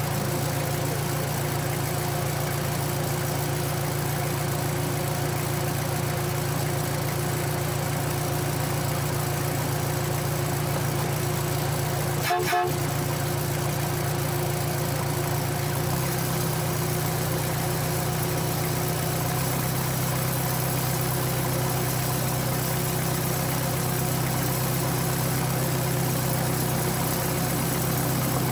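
Miniature railway locomotive engine running steadily, its note shifting about sixteen seconds in, with a brief horn toot about halfway through.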